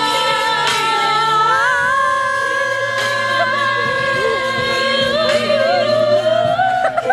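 Music: a song with a sung melody of long held, wavering notes over a steady accompaniment.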